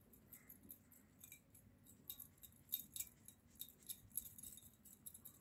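Makeup sponge dabbed repeatedly on the back of a hand: faint, irregular light ticks and taps, busier after about two seconds.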